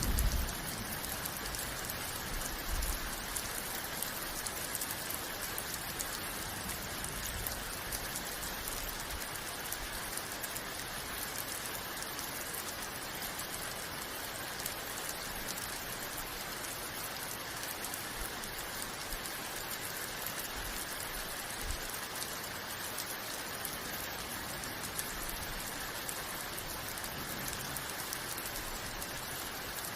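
Steady rain falling, an even hiss of many drops. A low rumble of thunder dies away in the first moment, with a faint low bump a few seconds later.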